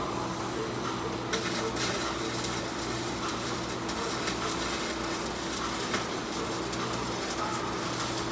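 Electric arc welding on steel plate: the arc strikes about a second in and then crackles steadily. A steady low hum runs underneath.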